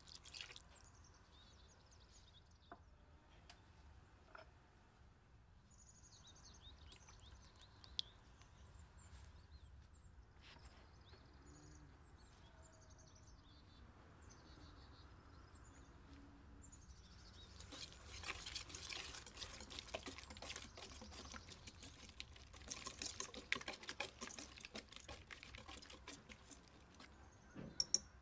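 Lemon juice poured briefly into a stainless steel bowl at the start, followed by scattered soft taps. From a little past the middle, a wire whisk beating a yogurt-and-spice marinade in the stainless steel bowl, with rapid clinks and scrapes against the metal.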